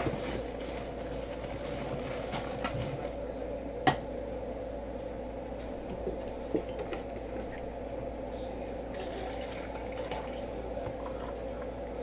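A plastic cup being handled and set down on a countertop, with a sharp tap about four seconds in and light plastic rustling, over a steady electrical hum.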